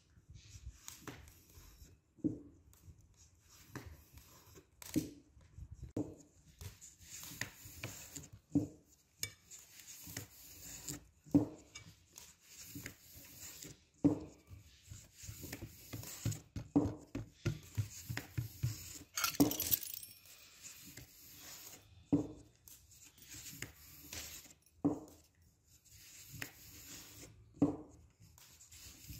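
Kitchen handling sounds of kutab being made: a metal spoon tapping and scraping as tripe filling is spread on thin dough over a silicone mat, hands pressing and rubbing the folded dough, and a fluted pastry wheel trimming its edge. Irregular light taps and clicks throughout, with a longer scrape about two-thirds of the way in.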